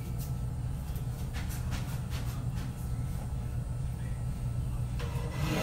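Steady low rumble, with a few faint clicks over it and a louder brief noise near the end.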